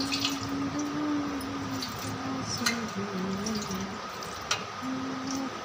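A person humming a slow tune of held notes that step up and down, with a few light clicks.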